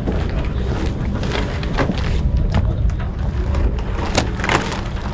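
Steady low rumble of wind buffeting the microphone, with scattered knocks and rustles as crew handle gear and a packed sail bag on a racing catamaran's deck.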